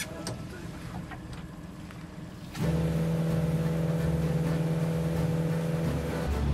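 Suzuki 80 hp outboard motor running at speed, a steady drone. It cuts in suddenly about two and a half seconds in after quieter deck noise, and drops to a lower note near the end.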